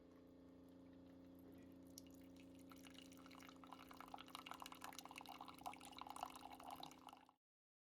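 Coffee maker filling a cup, heard faintly: a steady low hum, with dripping and sputtering that builds from about three seconds in, then cuts off suddenly.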